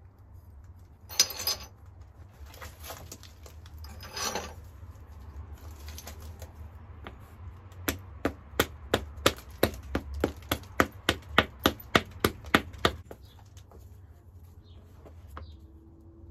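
Round hammerstone working the edge of a hornstone biface: a run of sharp, evenly spaced clicks, about three a second, lasting some five seconds, after two brief scrapes near the start.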